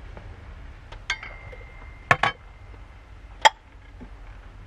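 Dishes clinking as ceramic bowls, a spoon and chopsticks are gathered into a plastic washbasin. About a second in there is a light clink whose ringing note lasts a couple of seconds. Two sharp knocks follow just after two seconds, and one more comes about a second later.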